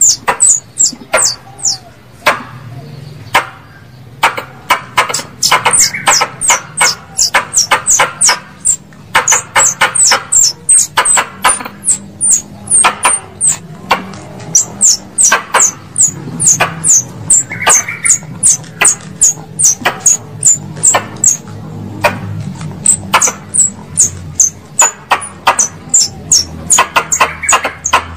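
Plantain squirrel (tupai kelapa) calls as used for a hunting lure: a long run of sharp, high chirps, each falling in pitch, about three a second with brief pauses.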